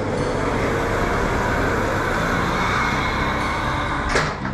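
Forklift engine running steadily, with one sharp clank about four seconds in.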